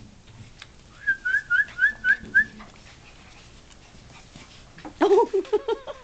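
Standard Poodle puppy whimpering: a run of six short, high, rising squeaks about four a second, then a louder, wavering whine near the end.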